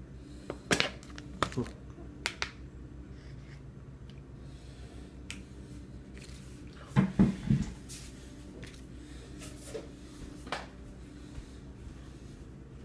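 A spoon clicking and tapping against a metal feeding bowl as a toddler scoops her food, in scattered sharp taps with a louder cluster about seven seconds in, over a faint steady low hum.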